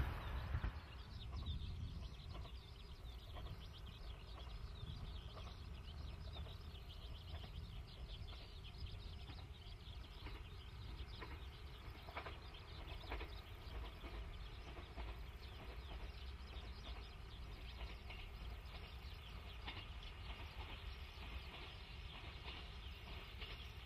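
A train's running sound fades away in the first second, leaving quiet outdoor ambience: faint birds chirping over a low steady rumble.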